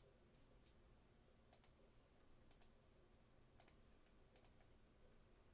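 A handful of faint clicks at a computer, some in quick pairs, over near silence, as names are entered into an online randomizer.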